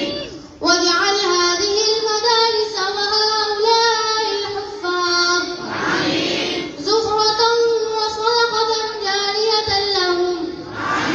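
Children's voices chanting a melody together, in long held, ornamented lines broken by a breath about every five to six seconds.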